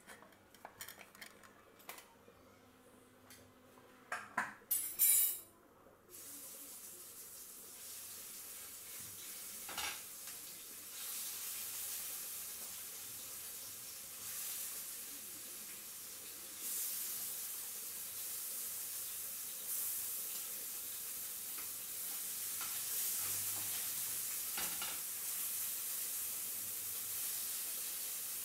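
A few light clinks and a short loud clatter of the pan, then marinated chicken pieces laid into hot coconut oil in a stainless steel frying pan. The oil sizzles steadily and grows louder in steps as each further piece goes in.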